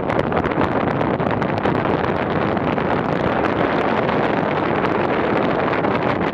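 Wind rushing over the microphone of a camera in flight with a paraglider: a steady, loud rush of airflow noise.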